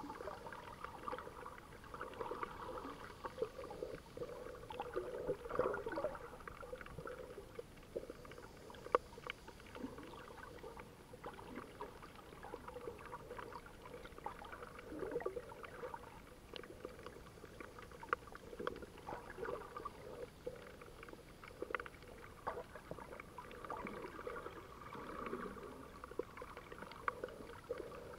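Underwater ambience picked up through a camera's waterproof housing: a muffled, uneven wash of water movement that swells and fades every few seconds, with many scattered sharp clicks and crackles.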